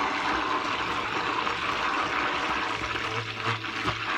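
Handheld stick blender running in soap batter, a steady motor whir with churning liquid, as colourant is blended into a small plastic cup of soap.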